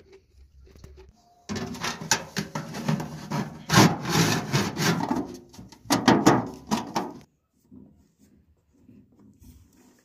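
Thin tin sheet scraping and rubbing in two rough bouts, the second shorter, as a rolled tin pipe is forced and twisted into a round hole cut in an oil tin.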